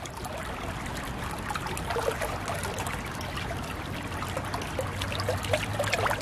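Shallow brook water trickling while large sea trout splash and churn at the surface on the spawning gravel, their fins and backs breaking through. The splashes come in irregular clusters, loudest about two seconds in and near the end.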